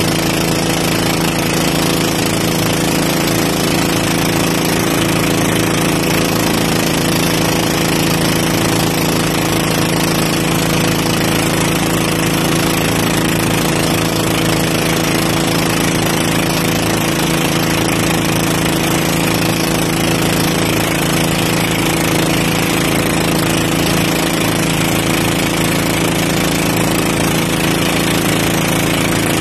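A motorized outrigger boat's engine running steadily at speed, loud and even throughout, with the rush of water and spray along the hull.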